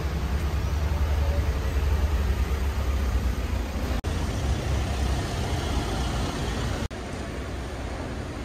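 Street ambience of motor traffic: cars and vans driving by with a steady low rumble of engines and tyres. The sound breaks off abruptly twice, about four and seven seconds in, and is quieter after the second break.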